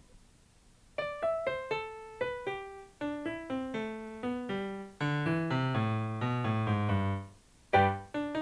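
Piano or electric keyboard playing a slow line of single notes and chords that steps downward in pitch, with a brief pause before it starts again near the end.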